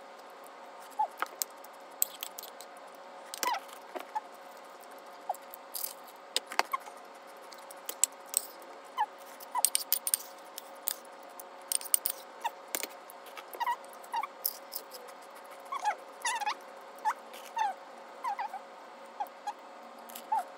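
Close-miked eating: wet chewing, lip smacks and tongue clicks in short, irregular bursts while she eats from a metal spoon. A faint steady hum sits underneath.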